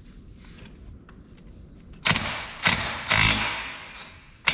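DeWalt cordless impact wrench hammering in short bursts on a front spindle bolt. It starts about two seconds in with three quick bursts, the last one longer, and another burst comes right at the end.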